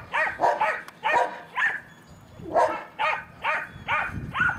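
A dog barking repeatedly, about nine sharp barks in two quick runs with a brief pause in the middle, each bark falling in pitch.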